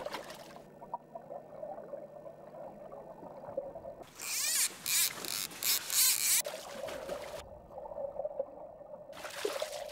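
River water heard through an underwater camera: a steady muffled murmur with a low hum. About four seconds in it gives way to a couple of seconds of loud rushing, splashing water noise, and a shorter burst comes near the end.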